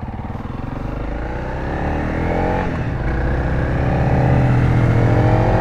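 Honda CRF300L's single-cylinder four-stroke engine accelerating from a standstill, revving up, dropping in pitch at one upshift about two and a half seconds in, then climbing again in the next gear.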